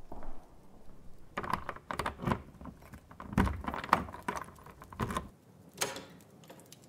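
A run of irregular clicks and light knocks, a few a second, thickest in the middle and thinning out toward the end.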